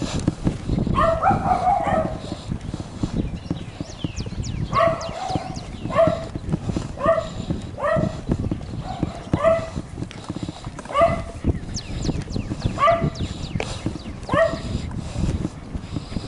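A dog whimpering in short, high, upward-hooked whines, roughly once a second, over the thumps of footsteps and the rubbing of a body-worn camera rig.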